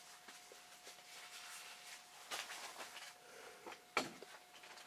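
Quiet room with a faint steady high hum and a few soft clicks and knocks of the camera being handled, the sharpest about four seconds in.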